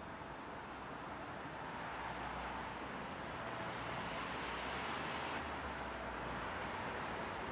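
Ambient city road traffic: a steady wash of tyre and engine noise, growing louder about two seconds in.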